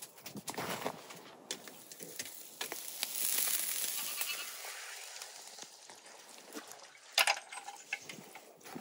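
Skewered sturgeon kebab sizzling over hot charcoal, swelling about three seconds in and fading slowly. A few sharp clicks just after seven seconds in as the cooked pieces are pushed off the metal skewers.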